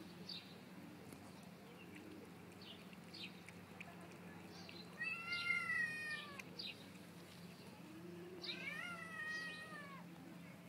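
A cat meows twice, each a long drawn-out meow, about five seconds in and again near the end. Faint bird chirps are heard throughout.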